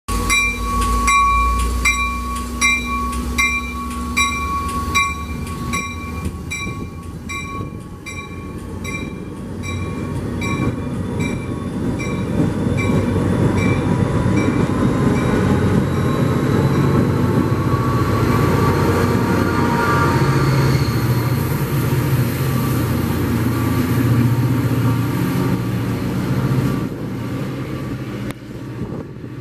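NJ Transit diesel-hauled passenger train with Comet V coaches running past close by. A regular ringing click, about one and a half a second, fades away over the first dozen seconds. The train's rumble then builds and stays loud before dropping off near the end.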